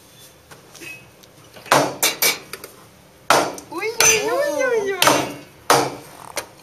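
Clanks and knocks of café espresso-bar equipment: a few sharp knocks about two seconds in, a longer noisy clattering stretch with a wavering sound rising and falling in pitch in the middle, and two more knocks near the end.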